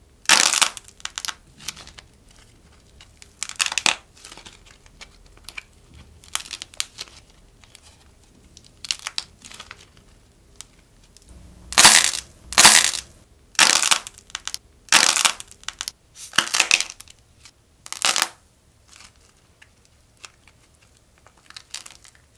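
Clay macaron shells coated with nail top coat being squeezed and crushed by hand, giving irregular crackling crunches, loudest in a run of sharp crunches about halfway through. The hardened top coat is what makes the clay crunch.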